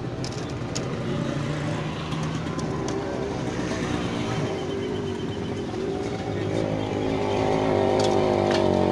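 A motor running steadily with an even hum, growing louder over the last couple of seconds. A few sharp clicks of metal skewers being handled on the grill come near the start and near the end.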